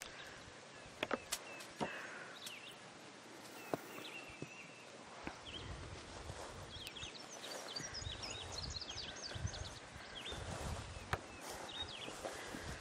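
Faint outdoor ambience: birds chirping, busiest about halfway through, with a few sharp clicks and leaf rustling as peaches are pulled off a peach tree. A low rumble runs through the second half.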